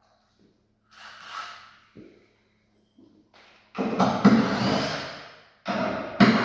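Shipping packaging being pulled apart: a soft rustle and a short knock, then two long, loud scraping, tearing noises that start suddenly and die away, over a faint steady electrical hum.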